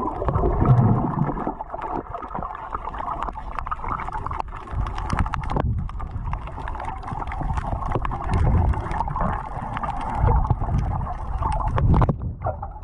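Underwater sound picked up by an action camera submerged in its housing: a muffled, steady water rush and low rumble, with many scattered small clicks and crackles.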